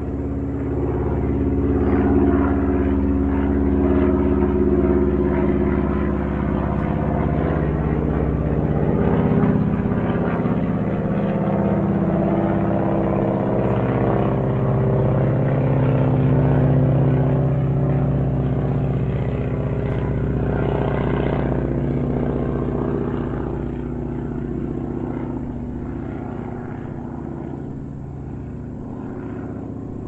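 Airplane in flight: a steady engine drone made of several pitched tones that shift slowly in pitch, growing gradually fainter over the last several seconds.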